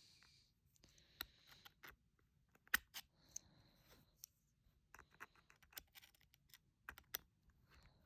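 Faint, irregular clicks and short scrapes of a small T5 Torx screwdriver working a stubborn screw in a Ridge wallet's metal plate.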